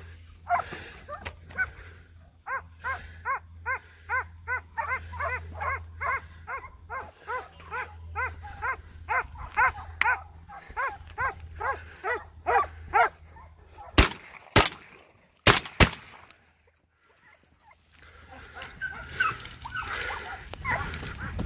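A hunting dog barking in a steady run of high yelps, about two a second, for some ten seconds. Then four sharp cracks come in quick succession.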